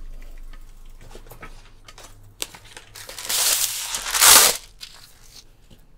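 A roll of baking paper being pulled from its box and torn off, with the paper rustling and crinkling. Light handling clicks come first, then the rustle builds from about three seconds in, and the loudest rip comes a little after four seconds.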